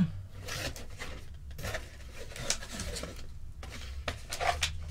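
Cardboard box being opened by hand: flaps folding back and scraping against each other, and packets inside being handled, in an uneven run of rubbing and rustling sounds with a short knock at the start.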